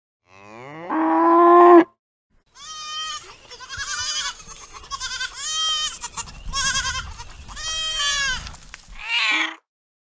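A cow moos once, the call rising in pitch as it starts. Then a young antelope gives a run of about five high, arching bleats, about one a second, and a short, different cry is heard near the end.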